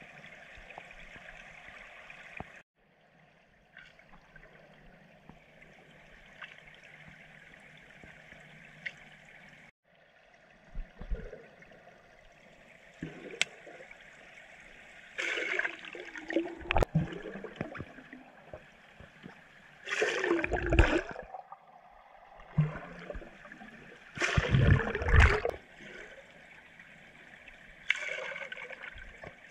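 Underwater pool sound picked up by a submerged camera: a steady watery hiss, broken several times by loud rushes of air bubbles released by a diver practising bubble rings. The biggest rushes come around the middle and again a few seconds later.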